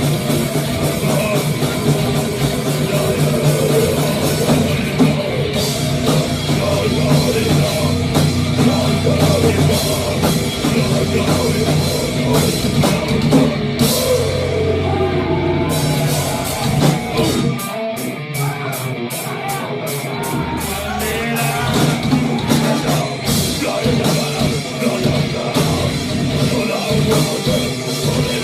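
Rock band playing live with a drum kit driving a heavy beat. About two-thirds of the way in, the bass drops out for a few seconds over rapid cymbal strokes, then the full band comes back in.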